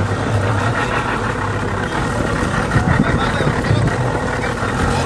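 Boat engine running steadily, a low drone under a rushing noise of wind and water.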